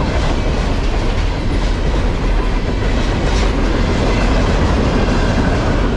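Freight train of container-loaded flatcars rolling past close by: a loud, steady rumble of steel wheels on the rails.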